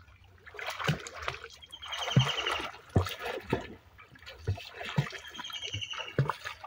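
Pond water splashing and sloshing irregularly as people swim and wade through it. A high, fluttering trill sounds twice over the water noise.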